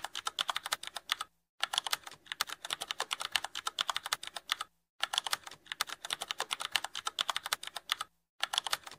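Keyboard typing sound effect: rapid keystroke clicks, broken by three brief pauses.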